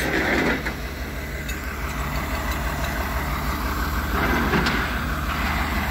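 Flatbed tow truck's engine idling steadily.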